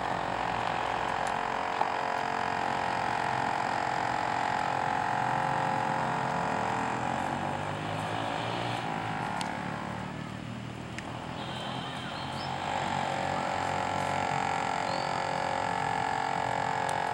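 Steady engine drone that dies down about ten seconds in and then builds again.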